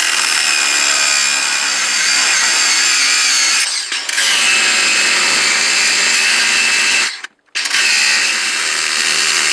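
Ryobi power drill running steadily at full speed as it backs screws out of a cast-iron wood stove. It dips briefly about four seconds in, cuts out about seven seconds in, and starts again half a second later.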